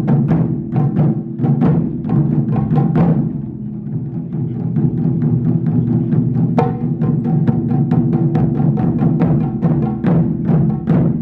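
Japanese taiko drums played in a fast, continuous run of strikes over a sustained low ringing. The run eases a little in the middle, and there is a sharp accented hit about two-thirds of the way through.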